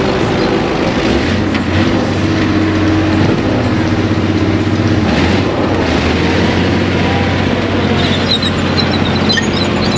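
Tracked military amphibious transporter's engine running steadily under load as the vehicle climbs out of the water up a riverbank.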